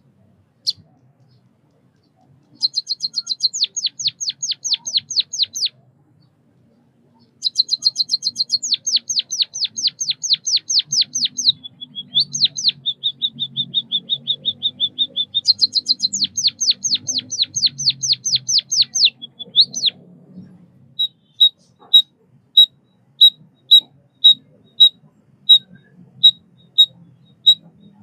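White-headed munia singing: fast runs of high, downward-sweeping notes in several bouts, a few seconds of steady buzzy trill in the middle, then a string of short separate chirps about two a second near the end.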